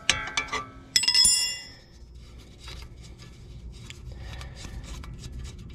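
A steel wrench clinking on the ball-joint nut of a Porsche 996 front control arm, with one loud ringing metal clink about a second in. Faint quick ticking follows as the loosened nut is turned off the stud by hand.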